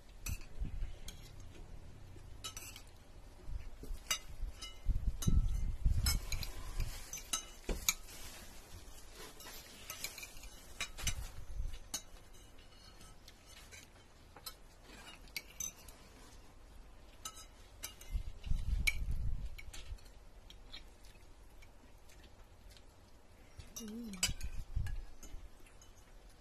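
Metal spoons and forks clinking and scraping against ceramic plates and bowls as people eat, in scattered, irregular clicks. A few dull low thumps come in between, the loudest about five seconds in and again after about eighteen seconds.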